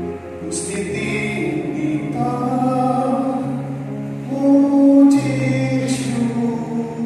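Church choir singing slowly in long, held notes, swelling to its loudest about two-thirds of the way through.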